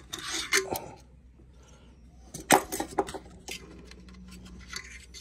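Small hard plastic and ceramic parts clicking and scraping as a hand works inside the opened housing of a Grundfos Scala2 pump at its shaft seal. There is a scraping rustle in the first second and scattered clicks, the sharpest two about two and a half and three seconds in.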